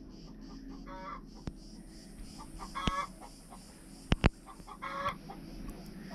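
Chickens clucking: three short calls about two seconds apart over a steady high-pitched buzz. Two sharp clicks come just after four seconds in.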